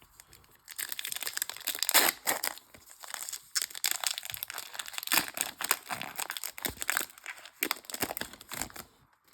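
Crinkling and tearing of a trading-card pack's foil wrapper being opened by hand, a dense run of sharp crackles starting about a second in.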